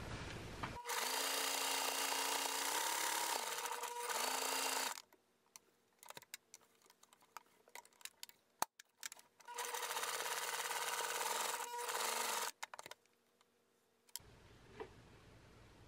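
Electric home sewing machine stitching fabric in two steady runs of a few seconds each, its motor dipping in pitch briefly as each run slows. Small scattered clicks come in the quiet pause between the runs.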